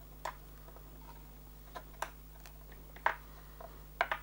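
Scattered light clicks and taps of a small hand tool against a hard plastic RC car part, about six in four seconds, louder ones about three seconds in and near the end.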